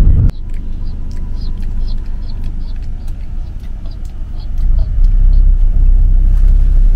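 Low rumble of a car's engine and road noise heard from inside the cabin. It drops suddenly just after the start and grows loud again about five seconds in.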